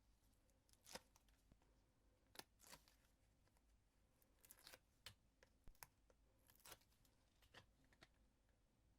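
Faint, scattered clicks and rustles of paper and card being handled, with a few small sharp ticks.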